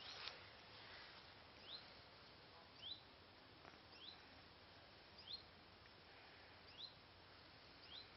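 Faint bird call: a short rising chirp repeated every second or so, six times, over a quiet outdoor hiss. A brief rustle right at the start.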